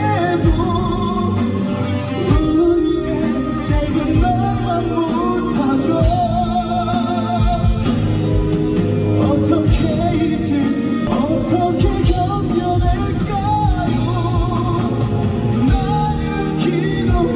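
Male vocalist singing a Korean ballad live into a handheld microphone over band accompaniment, with long held notes sung with vibrato.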